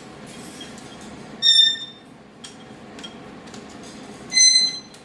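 Baby caique parrot giving a short, high whistled call twice, about three seconds apart, with a few faint ticks in between.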